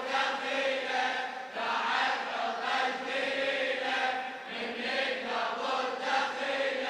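A congregation of male mourners chanting a Shia latmiyya refrain in unison, in phrases of a second or two, answering the lead reciter between his lines.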